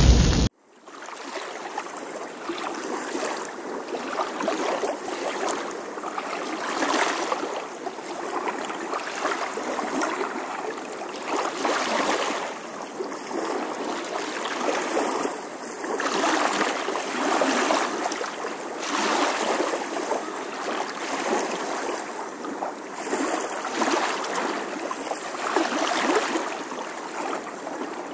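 Storm wind and choppy lake water: a steady rushing noise that swells and eases every second or two. It follows a loud, blast-like intro effect that cuts off about half a second in.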